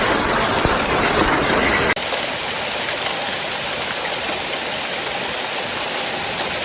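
Hail falling hard on pavement, roofs and cars: a dense, steady patter of ice pellets. About two seconds in it cuts to another recording where the pelting continues slightly quieter and more hiss-like.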